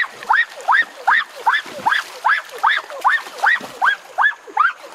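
An animal call repeated rapidly and evenly, about two and a half times a second, each call a short sharp upward sweep.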